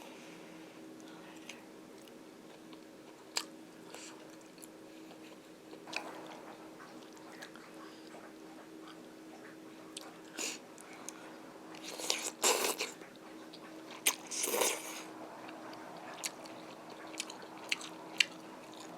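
A person eating: chewing and biting, with scattered small clicks and two louder noisy bursts, about twelve and about fourteen and a half seconds in. A faint steady hum runs underneath.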